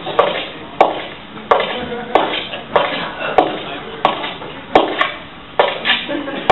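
A slow, even series of sharp clanking knocks, about one every two-thirds of a second, each ringing briefly.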